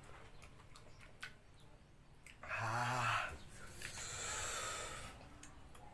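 A man gives a short, rough, throaty groan, then blows out a long hissing breath through pursed lips, reacting to the burn of raw red chili peppers in his mouth. A few faint mouth clicks come before it.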